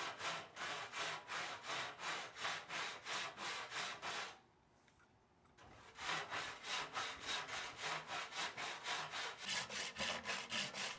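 Hand saw cutting through a wooden chair rail in quick, even back-and-forth strokes, about four a second. The sound drops out for about a second and a half near the middle, then the sawing resumes.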